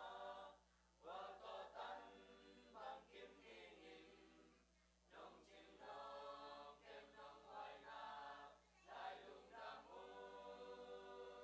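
Mixed youth church choir singing a hymn, faint, in phrases with short pauses between them.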